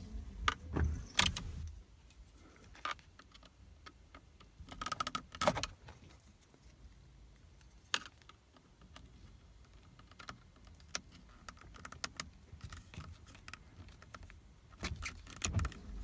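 Small pocket screwdriver working at the plastic clip that holds a Toyota Corolla's wiper combination switch on the steering column: scattered light clicks and taps, a cluster about five seconds in and a sharp click near eight seconds. The key ring hanging from the ignition jangles along with it.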